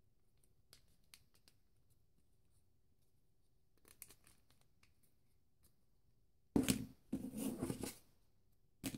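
Paper rustling and crinkling as hands fold and tuck the flaps of a paper ninja star: a few soft crackles, then a louder spell of rustling for over a second about two-thirds through, and one short rustle at the end.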